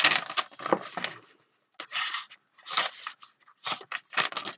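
A deliberately dulled knife blade is pressed and dragged against material it fails to cut, giving a series of short crunching, tearing scrapes with brief gaps between them.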